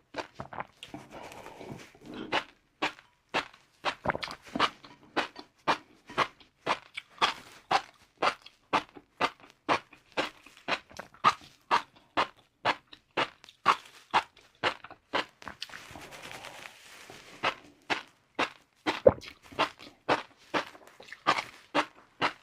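Close-miked chewing of crunchy fried noodles: a regular run of sharp crunches, about two to three a second.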